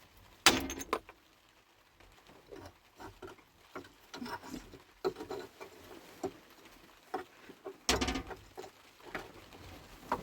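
Scattered knocks and clatters of things being handled, with a loud cluster of impacts about half a second in and another near eight seconds.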